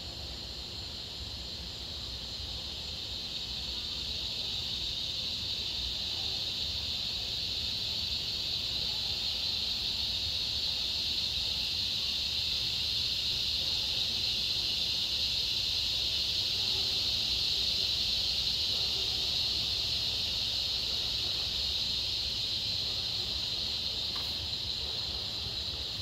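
A chorus of cicadas buzzing: a steady high drone that slowly swells, peaks about two-thirds of the way through, then eases off.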